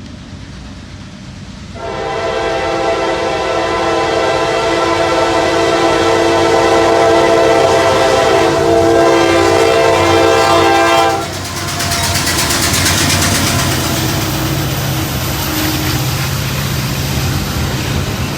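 Norfolk Southern freight train's lead diesel locomotive sounding its multi-chime horn for about nine seconds, starting about two seconds in and cutting off abruptly. The train then passes with engine rumble and wheel noise.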